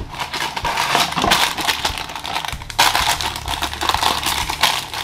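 Crinkling and rustling of a Funko Mystery Mini cardboard blind box as it is torn open and its flaps unfolded, with many small crackles and clicks.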